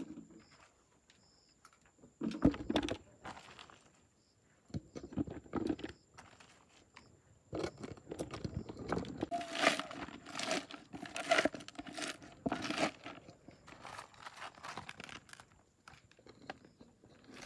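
Sliced star fruit being handled in a plastic colander and packed into a glass jar: scattered knocks, clicks and rustling in irregular bursts, sparse at first and busiest in the second half.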